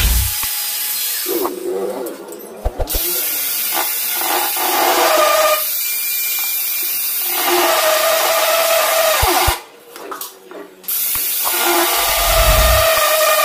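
Electric angle grinder with a diamond disc running and cutting into a stone countertop: a loud grinding hiss with a steady motor whine. It drops away briefly twice, about two seconds in and again around ten seconds in.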